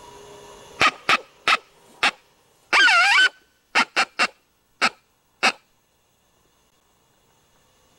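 Coyote challenge barks: four short, sharp barks, one longer wavering yelp about three seconds in, then five more barks.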